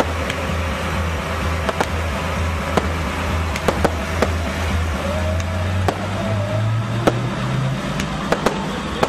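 Aerial firework shells bursting: about a dozen sharp reports at uneven intervals. Underneath runs a steady low drone that rises in pitch about two-thirds of the way through.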